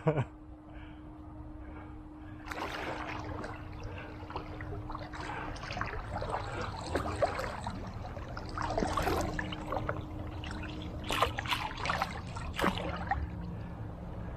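Pool water splashing and sloshing as a Belgian Malinois puppy swims, picking up a couple of seconds in, with a steady low hum underneath.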